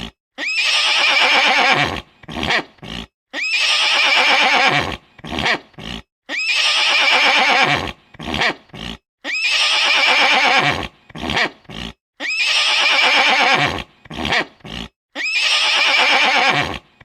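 A horse whinnying, the same neigh repeated six times about every three seconds. Each is a long, loud, high call followed by three or four short bursts that fall in pitch and trail off.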